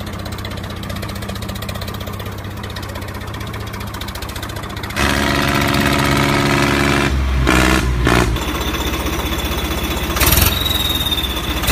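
Tractor engine running with a steady low chug. It gets louder about five seconds in and shifts in pitch again around seven to eight seconds.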